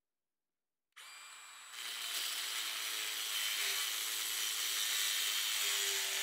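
Milwaukee M18 Fuel cordless metal-cutting circular saw starting up about a second in, then cutting through a steel pipe, getting louder once the blade bites into the metal and running steadily.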